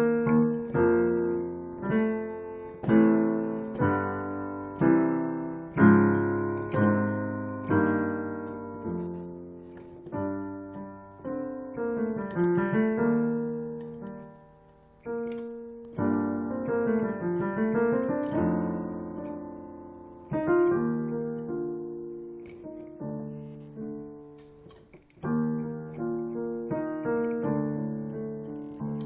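Solo piano playing a slow piece in sustained chords, with a couple of quick runs down and back up in the middle and brief pauses between phrases.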